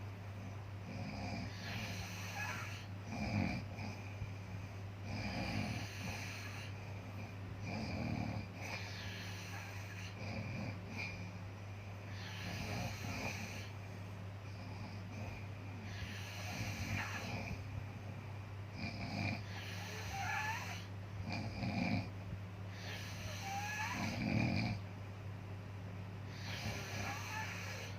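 Snoring: slow, regular snoring breaths about every two and a half seconds, several with a thin whistling wheeze, over a steady low hum.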